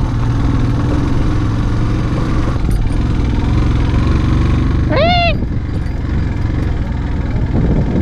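Yamaha FZ-S motorcycle's single-cylinder engine running steadily under way, with wind and road noise. About five seconds in there is one short rising-and-falling high call.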